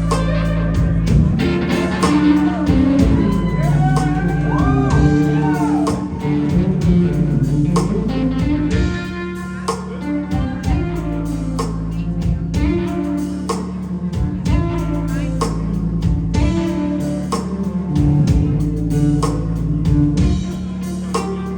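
A live blues-rock band playing loudly: electric guitar over a drum kit, with sharp drum hits throughout and notes that bend in pitch a few seconds in.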